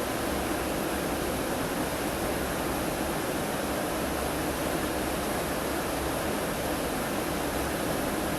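Steady rushing noise of river water, as from water pouring over a dam.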